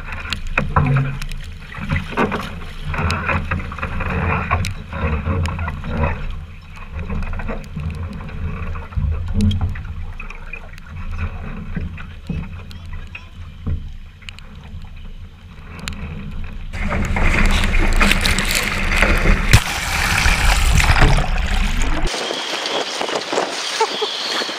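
Strong wind and spray on a camera mounted on a Finn dinghy's deck: a low rumble of wind buffeting with knocks of water hitting the hull and deck. About 17 seconds in it changes to a loud, hissing wind noise on the microphone, with a thinner hiss near the end.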